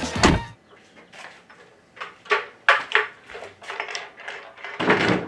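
Plywood deck box being handled and set down: a string of sharp wooden knocks and clatters, with a louder thump at the start and another noisy bump near the end.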